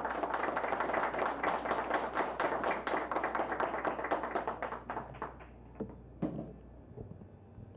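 A small audience applauding: dense clapping that thins out and stops about five seconds in, followed by a few last scattered claps.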